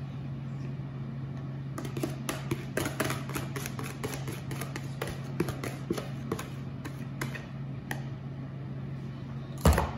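Wire whisk clicking and scraping against a plastic mixing bowl as thick batter is scraped out, a quick irregular run of clicks. A steady low hum throughout, and one loud knock near the end.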